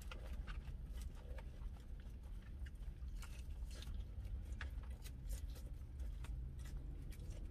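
Close chewing of a lettuce salad: many short crisp crunches and clicks scattered irregularly, over a steady low hum.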